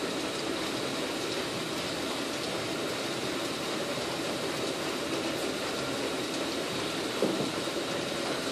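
Steady rushing, rumbling noise of a water-powered grinding shop running, with one short knock about seven seconds in.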